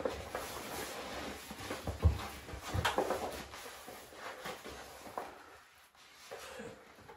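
Pasted lining paper rustling and crinkling as it is handled and pressed against the wall, with one louder knock about two seconds in. The rustling dies down over the last couple of seconds.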